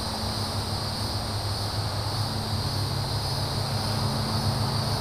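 Insects calling in a continuous high-pitched drone, over a steady low hum.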